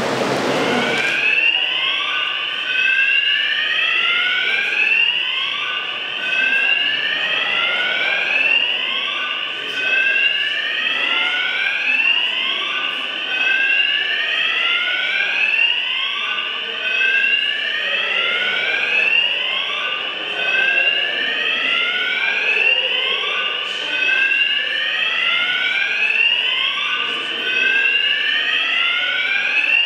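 Electronic fire alarm sounding a repeated rising whoop, about once a second, starting about a second in.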